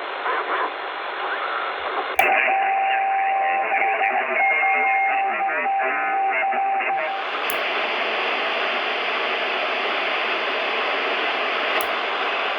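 CB radio receiver on the 11-meter band, its speaker giving distorted sideband voices and static. A click comes about two seconds in. A steady heterodyne whistle then sits in the audio for about five seconds, with a short higher tone partway through. After another click, about seven seconds in, the receiver gives an even, wider hiss, and there is one more click near the end.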